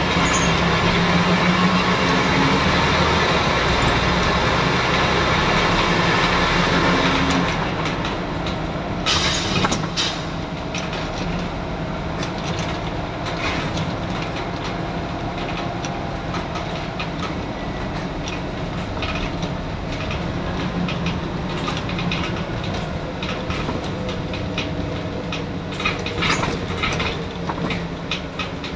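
Scania N94UD double-decker bus on the move, its 9-litre five-cylinder diesel running under power and louder for about the first seven seconds, then easing off. Road noise and the clicking and rattling of the bus body and fittings run throughout, with bursts of rattling about nine seconds in and again near the end.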